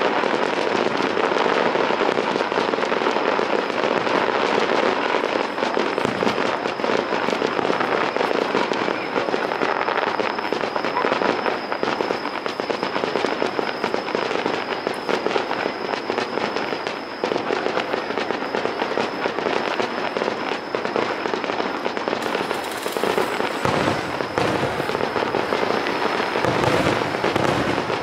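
Fireworks going off in a dense barrage: overlapping bursts and crackling that run together into a continuous din.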